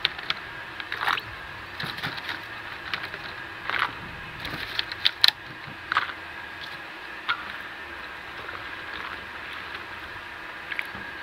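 Green chillies dropped into a steel bowl of water and washed by hand, with a run of small splashes and knocks against the steel, then quieter sloshing as the hands rub them in the water.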